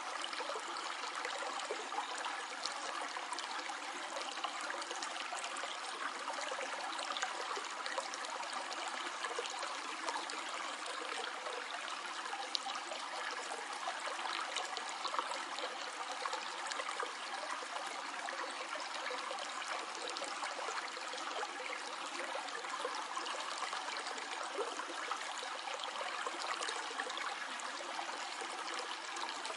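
Small stream flowing steadily over stones, a continuous rushing and trickling of water.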